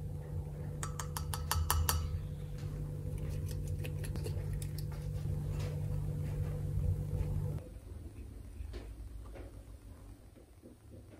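Metal kitchen utensils clinking against dishes: a quick run of clinks about a second in, then scattered clinks, over a steady low hum that stops abruptly near the end.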